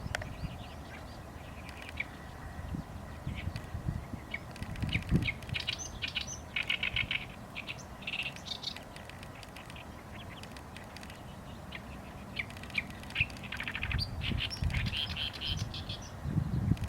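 Small wild birds chirping, with high chirps and rapid trilled series of notes in clusters, loudest about a third of the way in and again near the end, over a low rumble with occasional thumps.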